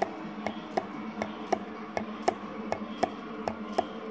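A small horizontal engine model running, its crank, connecting rod and flywheel turning with a regular mechanical click about three times a second over a steady low hum.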